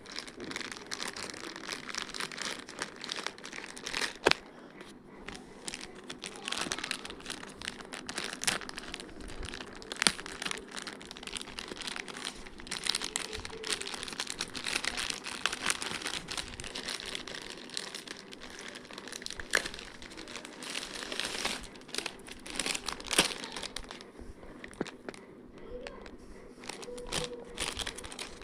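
Plastic packaging crinkling and rustling as a phone case is unboxed and handled, with a few sharp clicks scattered through.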